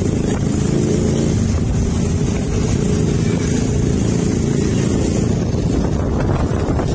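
Motorbike engine running at a steady pace while riding along, with no change in speed.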